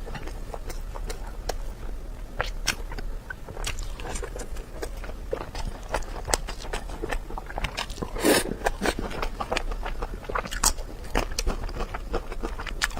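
Close-miked eating: a person chewing and biting food, with many irregular mouth clicks and smacks and one longer, louder noise about eight seconds in.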